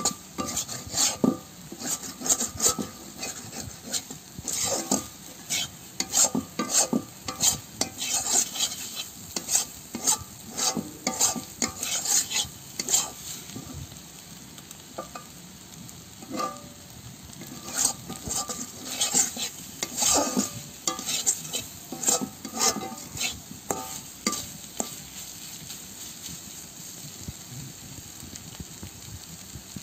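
A metal spatula scraping and turning mutton liver pieces in a kadai, in quick repeated strokes over a steady sizzle of hot oil. The liver is at the final dry-fry (bhuna) stage, well browned. The strokes thin out near the end, leaving mostly the sizzle.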